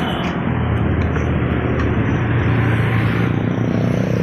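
Steady vehicle engine noise with a low hum.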